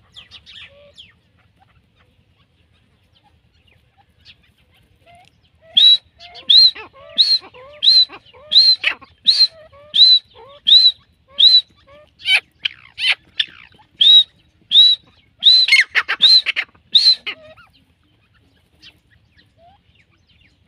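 Grey francolin (teetar) giving its loud territorial call: a run of about eighteen ringing high notes, roughly one and a half a second. The run starts about six seconds in and lasts some twelve seconds.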